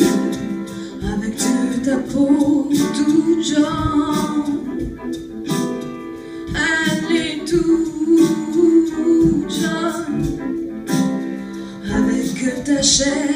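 Live song performance: voices singing over instrumental accompaniment, with sharp percussive strokes through it.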